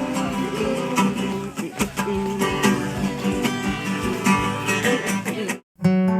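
Background pop music with strummed guitar. It cuts off abruptly about five and a half seconds in, and after a brief silence another song begins with sustained chords.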